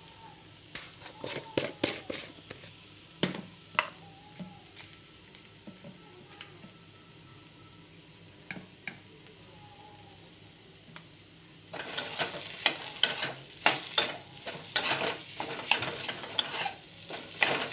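A utensil stirring and scraping mashed potato filling around a pan as salt and spices are mixed in: scattered clinks and scrapes at first, then rapid, continuous scraping and clatter from about twelve seconds in.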